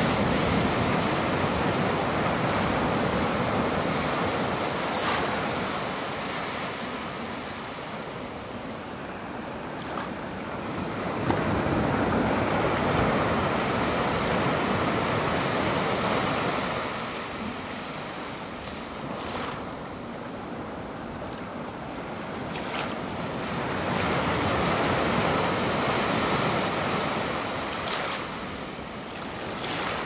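Ocean surf: waves breaking and washing up the shore, a rushing noise that rises and falls back in three long swells.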